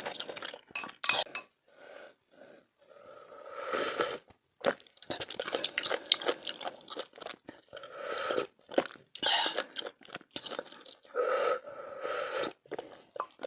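Close-up eating sounds: a person chewing and biting crunchy food in irregular bursts with short pauses between them.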